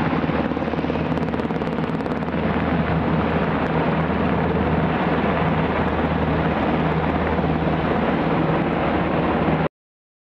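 UH-60 Black Hawk helicopter in flight, a steady rotor and turbine roar that cuts off suddenly near the end.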